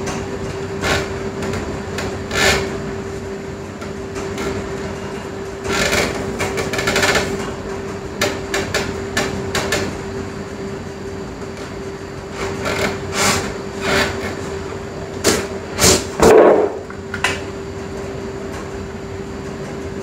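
Scattered knocks and clicks of objects being handled and set down, louder and closer together near the end, over a steady hum.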